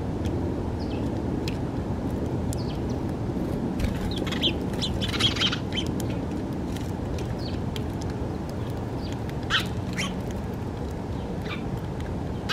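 House sparrows chirping, short scattered chirps that crowd together about halfway through, with two sharp chirps later. A steady low background rumble runs underneath.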